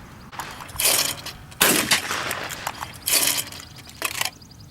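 Shotgun shots at a clay target range: three loud reports, each with a short echoing tail, then a fainter fourth shot near the end.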